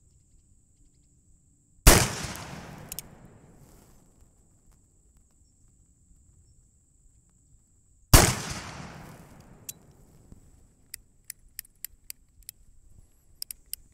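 Two shots from an 1860 Army Colt replica cap-and-ball .44 revolver loaded with black powder, about six seconds apart, each trailing a long echo that dies away over a couple of seconds. These are followed by a string of light clicks as the revolver is handled.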